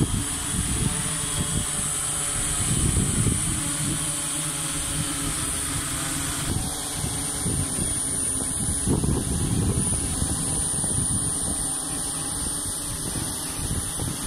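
Several large multirotor drones (SY-1000 and SY-1200) hovering together, their propellers and motors running with a steady high whine over a gusty low rumble of wind on the microphone.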